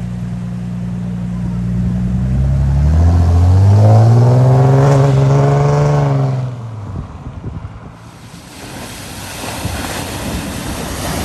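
A car engine running steadily, then revving up, with its pitch rising for a few seconds, and easing off about six seconds in. Near the end comes the rushing splash of a car ploughing through the floodwater of a ford.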